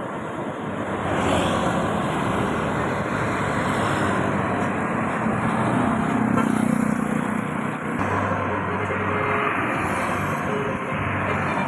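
Roadside traffic noise: motor vehicles, buses among them, passing by with a steady engine and tyre noise that swells a little past the middle.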